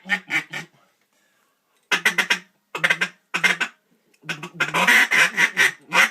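Mallard duck call blown in groups of short, quick quacks, a feeding chuckle, ending in a long rapid run.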